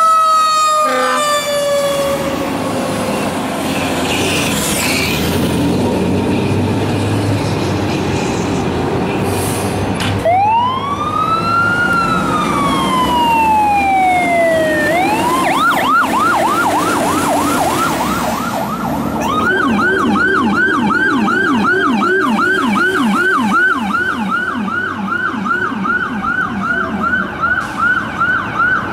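Fire trucks responding with sirens: a siren tone slides down, then diesel engine rumble as a fire engine pulls out. About ten seconds in an electronic siren gives one slow wail up and down, then switches to a fast yelp, and a second yelp siren overlaps it for most of the rest.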